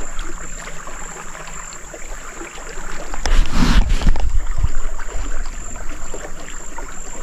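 Wind rumbling on the microphone outdoors, over a steady high-pitched whine, with a short louder rushing noise about three and a half seconds in.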